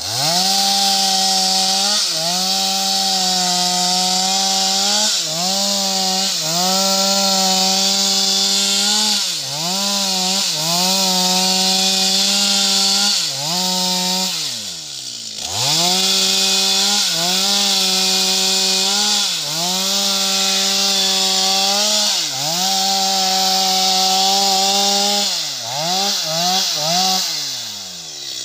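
Two-stroke chainsaw cutting into the trunk of a sengon (albizia) tree at full throttle, its engine note dipping briefly each time the chain is loaded in the cut. About halfway through it drops to idle for about a second and then revs back up to cut again. Near the end it is revved in several quick blips before easing off.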